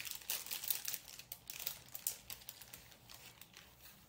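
Clear plastic zip-top bags crinkling and rustling in the hands as they are handled, in irregular crackles that thin out over the last couple of seconds.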